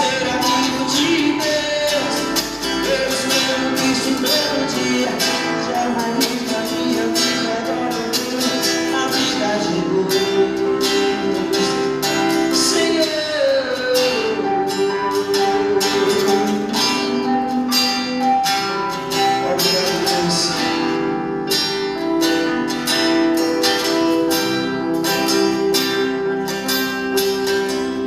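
Live gospel band music: a singing voice over sustained instrumental chords, with a regular beat.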